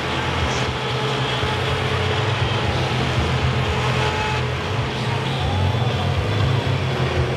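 Combine harvester engines running steadily, with a deep, even hum.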